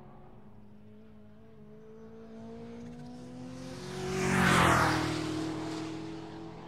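A Ford Mustang coupe driving past at speed: its steady engine note, with tyre and wind noise, swells to a peak about four and a half seconds in, then fades as it goes by.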